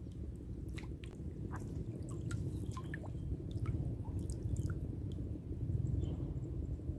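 Faint scattered drips and small ticks of water falling from a fishing float and line lifted out of the water, over a steady low rumble of wind on the microphone.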